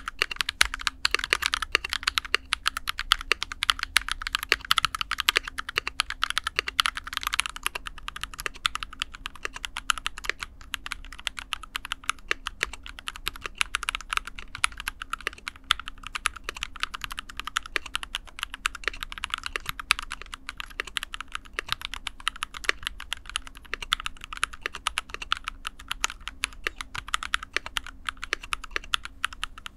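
Continuous fast typing on a Rexus Daxa M61 mechanical keyboard in an aluminium case, a dense run of key clacks. It is fitted first with lubed KTT Rose linear switches, then with lubed JWICK Black switches partway through.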